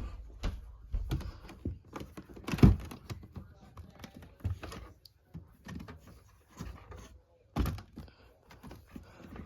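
Irregular knocks, clicks and thumps of objects being handled and put into a refrigerator, with two louder thumps, one a little under 3 seconds in and one about 7.5 seconds in.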